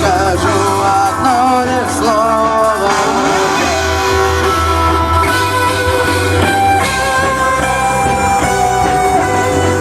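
Rock music: a guitar melody with bending notes over bass and drums.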